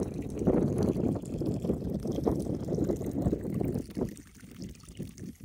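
Wind buffeting the microphone in heavy gusts. When it drops about four seconds in, a faint trickle of water is left: a thin stream falling from a fill pipe into a stock tank, the tank's continuous fill.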